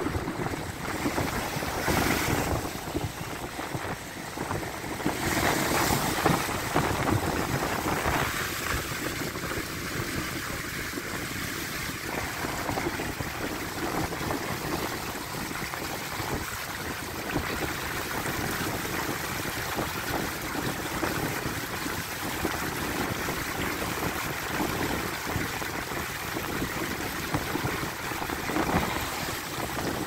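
Storm surf on the Sea of Azov, a steady rush of breaking waves and churning water against a wrecked concrete embankment, with louder surges about two and six seconds in.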